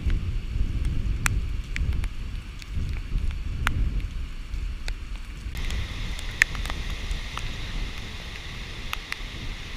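Hurricane wind gusting across the microphone in a low rumble, with rain and scattered drops ticking. A bit over halfway through a steady hiss joins in.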